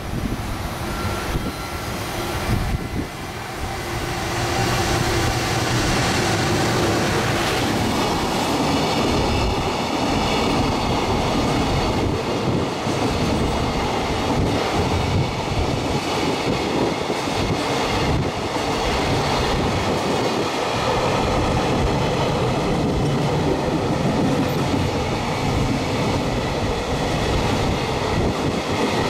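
JR Freight EF210 electric locomotive passing at speed, followed by a long train of container wagons running through the station. The sound builds over the first few seconds as the locomotive nears, then holds steady and loud as the wagons stream past.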